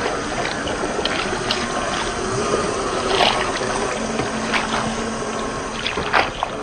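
Muddy water splashing and sloshing around a 1/10 scale RC crawler's tyres as it drives through a wet, muddy trail, with many short splashes over a steady wash of noise.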